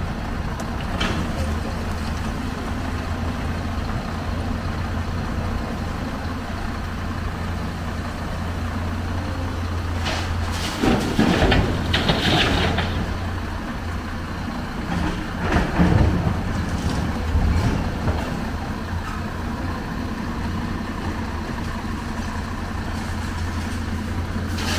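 Heavy diesel machinery running steadily with a low hum, from the excavator working scrap metal out of a dump truck bed. There are two louder, noisier stretches, one about eleven seconds in and one about sixteen seconds in.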